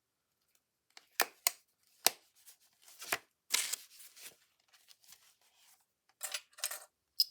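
Clamps being clipped onto a stack of journal pages to hold them together: a series of sharp clicks and snaps with some paper rustling.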